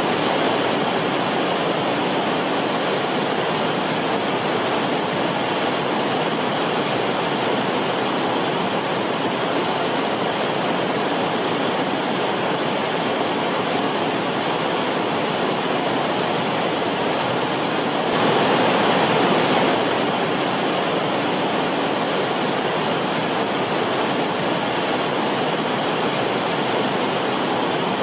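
Forest stream of water rushing steadily, an even splashing wash that swells a little for a second or two about two-thirds of the way in.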